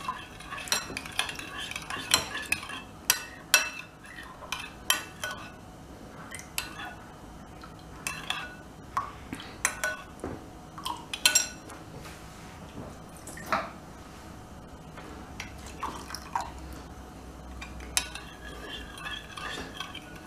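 Metal spoon stirring cherry syrup in a glass bowl, clinking irregularly against the glass as water is mixed in to thin the syrup.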